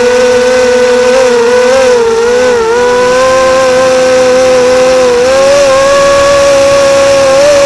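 Quadcopter's electric motors and propellers whining steadily, heard close from the onboard camera, the pitch dipping briefly a couple of times as the throttle changes.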